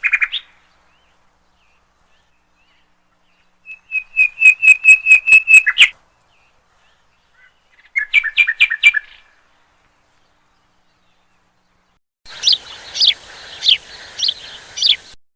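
A bird calling in three quick bursts of sharp, repeated chirps: a run of about ten notes, then about five, then about five louder notes over a hiss near the end.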